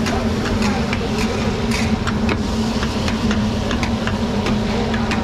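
A steady motor drone, with frequent short clicks and knocks scattered irregularly through it.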